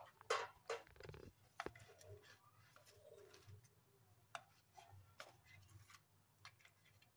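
Near quiet, broken by faint, scattered taps and clicks as fried malpua pancakes are laid by hand onto a serving dish, the strongest in the first two seconds.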